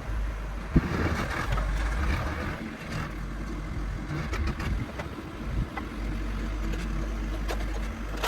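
John Deere backhoe's diesel engine running steadily while clearing brush and small trees, with a few sharp cracks or knocks heard over it.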